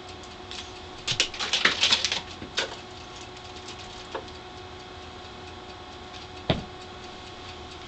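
A kitten scrambling on a wooden bookshelf: a burst of scratching and crackling about a second in, a few light clicks, and a single thump near the end, over a faint steady hum.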